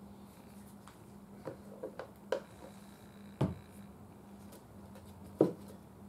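Scattered light taps and knocks of a small wooden radio cabinet being handled while a loose joint is glued, with a dull knock about three and a half seconds in and the loudest, sharper knock near the end. A faint steady hum underneath.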